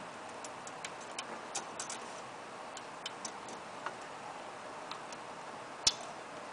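Light, irregular metallic clicks and taps of a thin wire governor rod and spring being worked into the throttle bracket of a small engine, with one sharper click near the end.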